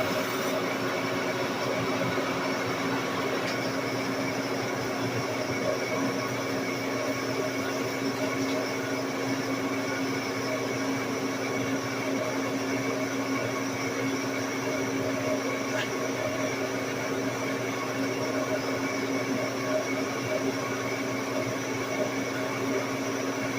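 Large engine lathe running steadily, its motor and gearing giving a constant hum with several steady tones and no change in pitch or level.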